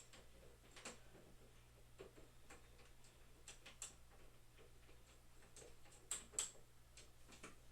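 Faint, irregular clicks and small taps, the sound of a hand tool and hardware parts being handled during assembly, with two sharper clicks a little past the middle.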